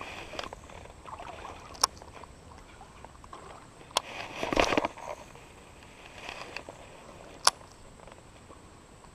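Baitcasting reel and rod being cast and worked: a few single sharp clicks from the reel, and a short rush of noise as the rod swings through a cast about four and a half seconds in.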